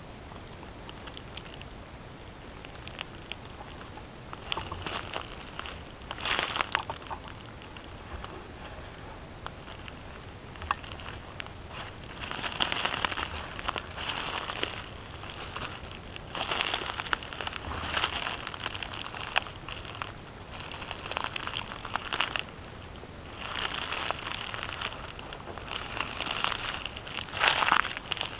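Dry leaf litter crunching and crackling in repeated irregular bursts of a second or two, with quieter stretches between them.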